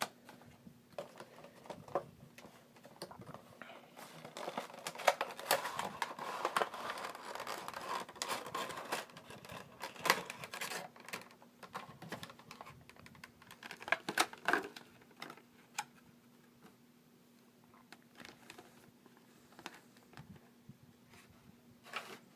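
A cardboard figure box and its plastic packaging being opened and handled by hand: scattered clicks and taps, with a denser stretch of rustling and scraping a few seconds in, then only occasional light clicks in the second half.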